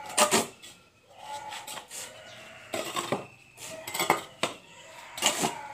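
Metal hand tools striking hard ground or rubble in irregular blows, about half a dozen, each with a short metallic ring.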